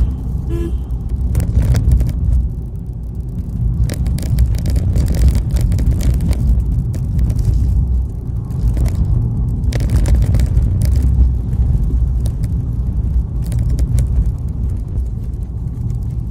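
Moving vehicle heard from inside the cab: a steady low road and engine rumble, with frequent short rattles and knocks over the rough road.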